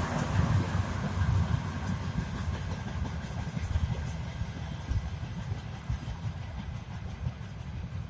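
Freight train of tank cars rolling away, a steady low rumble that slowly fades.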